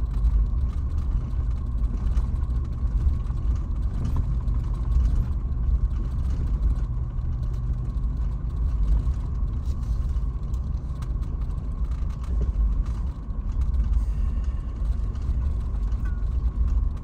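Toyota 4Runner TRD Pro driving along a rough dirt trail, heard from inside the cabin: a steady low rumble of engine and tyres with scattered rattles and knocks from the bumpy track.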